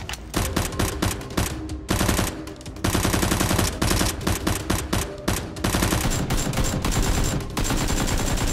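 Rapid automatic-gunfire sound effect dubbed over a Nerf blaster firing: a few short bursts, then one long continuous burst of fast shots from about three seconds in.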